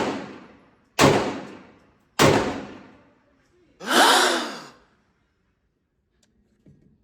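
Glock 43X 9mm pistol firing, shots about a second apart, each with a ringing tail that dies away over about a second. About a second and a half after the last shot comes a loud breathy sound that falls in pitch.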